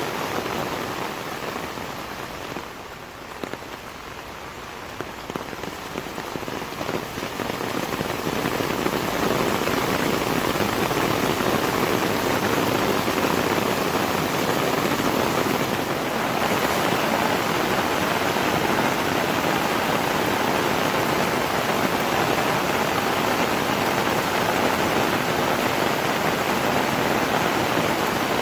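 Heavy rain pouring down and falling on an umbrella overhead, a dense steady hiss; it is lighter for the first few seconds and grows heavier and steady from about eight seconds in.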